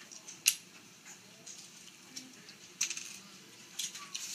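Plastic Lego bricks being handled: a sharp click about half a second in, then a few lighter clicks and clatters.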